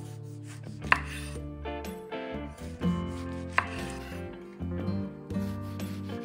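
A kitchen knife slicing through tomatoes, the blade knocking on a wooden cutting board a few times at the end of each stroke. The loudest knocks come about a second in and again past the middle, over soft background music.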